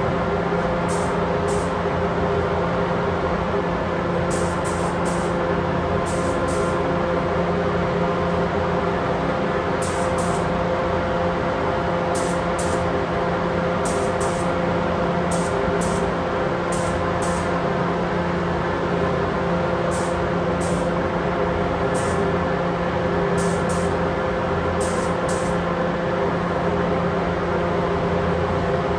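Paint spray booth ventilation running with a steady hum, together with the hiss of compressed air from a gravity-feed spray gun spraying paint, coming in short repeated bursts.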